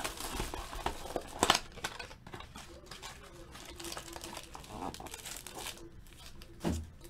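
Plastic wrapping on a box of baseball card packs crinkling and tearing as the box is opened by hand, with two sharp rips in the first couple of seconds, then quieter rustling as the packs are handled.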